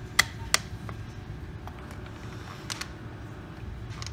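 Small metal bolts and 3D-printed plastic parts clicking and tapping as M3 bolts are handled and set into the extruder's front piece by hand: two sharp clicks just after the start, then a few fainter ones later. A low steady hum runs underneath.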